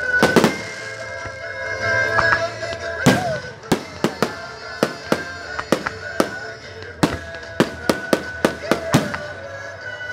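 Fireworks display: aerial shells going off in a run of sharp bangs, coming quicker toward the end, about two a second, over music playing throughout.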